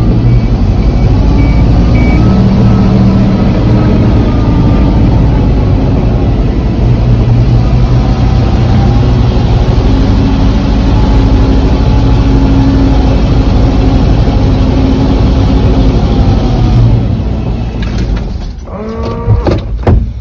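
Truck engine running as the truck drives slowly, heard from inside the cab, its pitch drifting up and down with the throttle. The engine noise drops away about three seconds before the end.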